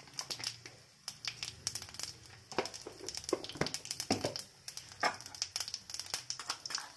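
Cumin seeds and a dried red chilli frying in hot mustard oil in a kadhai, the seeds crackling with many quick, irregular pops as the tempering cooks.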